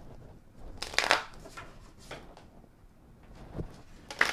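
An oracle card deck being shuffled by hand: short papery rustles and slaps of the cards, the loudest about a second in, then a quick run of card flicks near the end.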